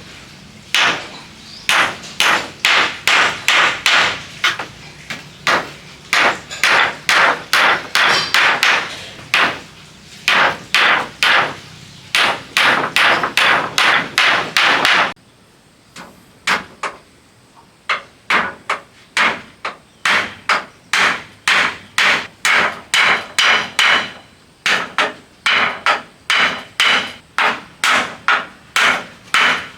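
Hammer striking wood in quick runs of blows, about two to three a second, with short pauses between runs, as in nailing a building together.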